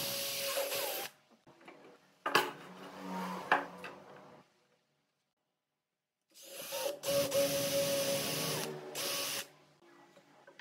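Cordless drill with a twist bit boring into the edge of a pine ring, its motor running with a steady whine in two spells: one ending about a second in, the other about three seconds long in the second half. Between them come quieter clicks and a lower, slower run.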